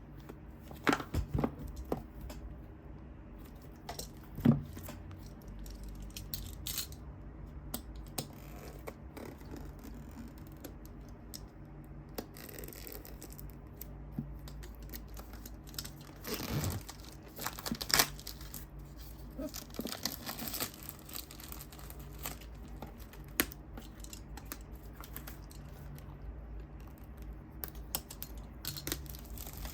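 Parcel packaging being opened by hand: tearing, crinkling and scattered clicks and knocks, loudest about two thirds of the way through, over a faint steady low hum.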